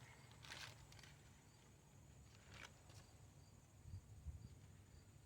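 Near silence, with a few faint clicks of a part being handled.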